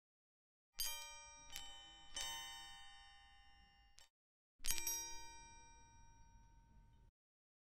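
Bell-like chime notes ringing and fading: three struck in quick succession about a second in, then one more a little after halfway, which cuts off abruptly. Music added over the picture.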